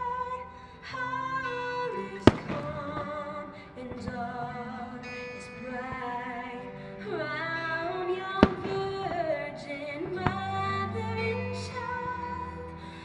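Music with singing, cut by three sharp firework bangs: one about two seconds in, and two more about eight and ten seconds in.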